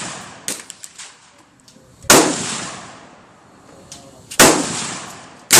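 Gunshots: one about two seconds in, another a little over two seconds later, and a third right at the end, each sharp crack ringing out with a long echo. A few fainter cracks come about half a second in.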